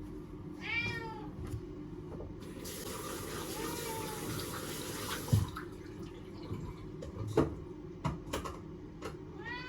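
A domestic cat meows once about half a second in, again faintly a few seconds later, and once more at the very end. For about four seconds in the middle a rushing hiss like running water is heard, and a few sharp knocks and clicks come in the second half.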